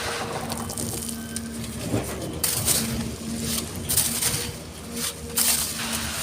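Excavator engine running with a steady hum while sand and stones scrape and pour, giving several short gritty rushes.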